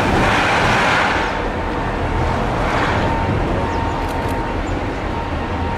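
Boeing 777's two turbofan engines at takeoff power during the takeoff roll: a steady jet roar with a faint constant whine, swelling louder right at the start and again about three seconds in.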